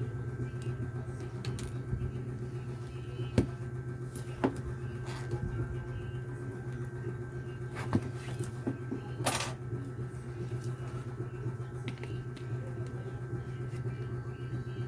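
A steady low electrical hum with a few sharp small clicks and taps, and a short hiss about nine seconds in.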